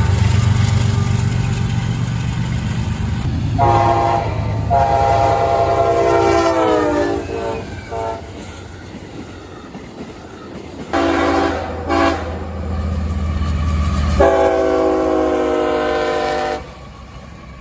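Freight locomotive air horn blowing a run of blasts: a short blast, then a long one that sags in pitch at its end, later a short blast, a very short one and a final long blast. A steady low rumble runs underneath.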